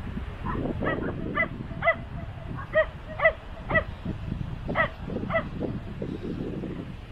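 A dog barking repeatedly, about ten short barks over five seconds, then stopping, with a low rumble of wind or surf underneath.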